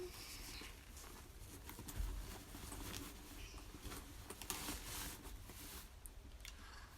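Faint rustling and light clicks of packaging being opened and handled by hand, with a soft thump about two seconds in.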